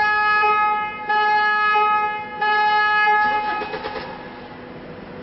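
Land Rover Discovery's car alarm going off, sounding the horn in long repeated blasts. It cuts off about three seconds in.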